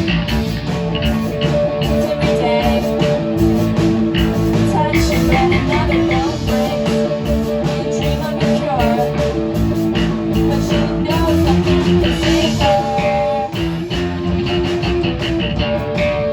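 Live rock band playing: electric guitar with bass and drums, loud and continuous, with held and bending guitar notes.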